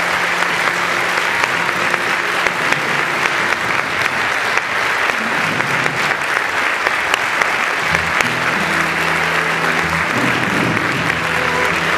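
Theatre audience applauding steadily, with music playing underneath; new held music notes come in about eight seconds in.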